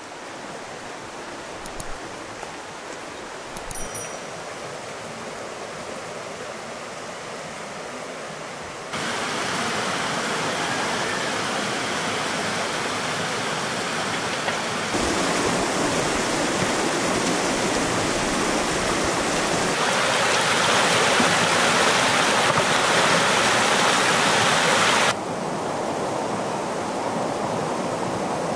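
Stream rushing over stones: a steady noisy rush of water that jumps abruptly louder a few times and drops back near the end. For the first nine seconds or so there is only a fainter outdoor hiss, with a couple of faint high chirps about four seconds in.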